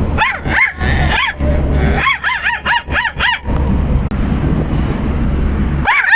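Dog barking in short, high, arched barks: a few near the start, then a quick run of about six around two to three seconds in, and another burst near the end, over a steady low hum.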